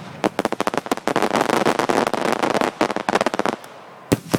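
Fireworks finale barrage: a fast string of sharp bangs and crackling pops. It runs densest from about a second in until past the middle, then thins out, with a couple of loud bangs near the end.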